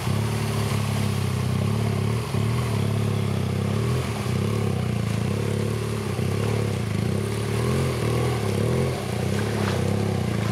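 BMW GS adventure motorcycle engine running at low revs as the bike crawls through deep muddy water, its pitch rising and falling a little with the throttle.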